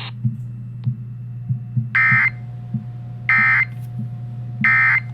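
Emergency Alert System end-of-message data bursts: three short, shrill digital chirps about a second apart, signalling the end of the AMBER Alert. Under them runs a steady low hum with faint regular ticks.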